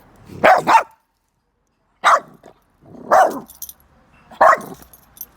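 A dog barking: a quick double bark, then three more single barks spaced a little over a second apart.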